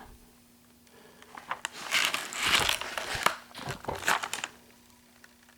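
Packaging crinkling and rustling as it is handled, a run of crackles starting about a second in and fading out near the end.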